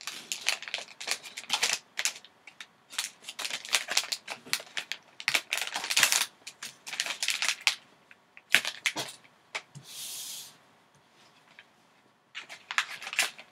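Foil pouch crinkling and crackling as it is torn open by hand, in quick irregular bursts, with a short smooth hiss about ten seconds in. More crinkling near the end as the graded card slab is slid out of the opened pouch.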